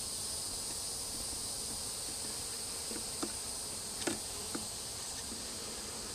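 Honey bees buzzing around an opened hive over a steady, high-pitched insect chorus, with a few light clicks from frames being handled about three, four and four and a half seconds in.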